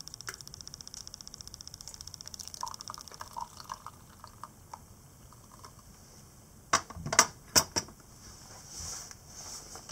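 Hot water poured from an electric kettle onto coffee grounds in a paper filter, heard as light trickling and crackling. A fast, even ticking runs through the first couple of seconds, and a cluster of sharp knocks about seven seconds in is the loudest sound.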